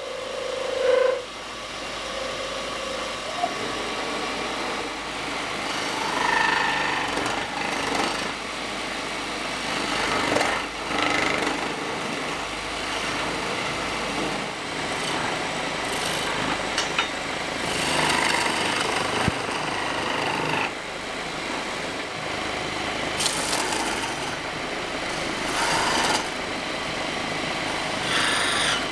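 Wood lathe running while a turning chisel cuts into a spinning wooden blank. The scraping of the tool on the wood grows louder in bouts every few seconds.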